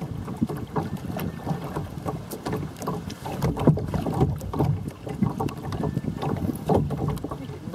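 Water slapping and splashing against a plastic kayak's bow as it moves across choppy water, with irregular knocks through the hull and wind buffeting the microphone.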